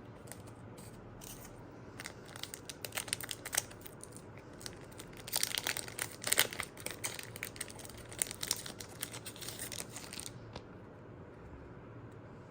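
Foil trading card booster pack wrapper being torn open and crinkled by hand, in crackly bursts that are busiest in the middle.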